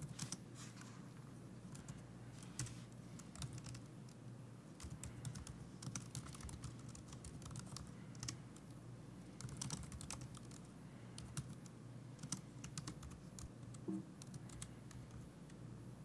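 Typing on a computer keyboard: irregular runs of quiet key clicks, over a faint steady low hum.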